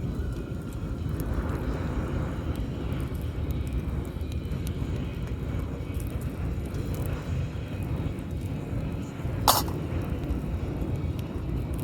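Steady low rumble of beach ambience, with faint crackles from a bonfire and one sharp pop about nine and a half seconds in.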